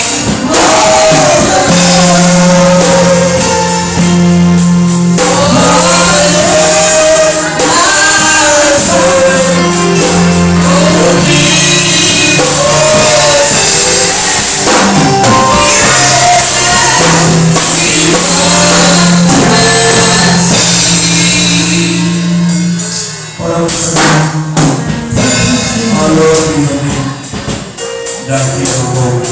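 Worship music: a sung song over drums and a steady bass line, dipping briefly near the end.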